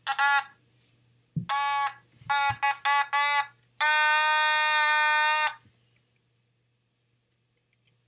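Otamatone, a handheld electronic toy synthesizer, playing a string of short steady-pitched notes and then one long held note about four seconds in that lasts over a second and a half.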